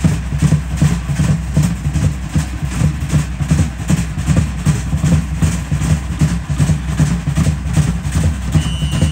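Live Polynesian drum ensemble playing a fast, even, deep beat on large drums and a wooden log drum to accompany a fire knife dance. A short high steady tone sounds near the end.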